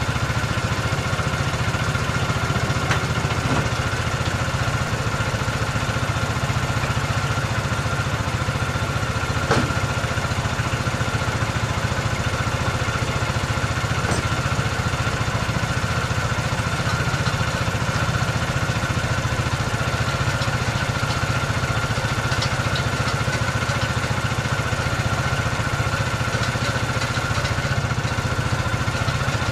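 Compact tractor's engine running steadily while it works its front-end loader, a low hum with a steady high whine over it. A couple of light knocks come about three seconds in and again near ten seconds.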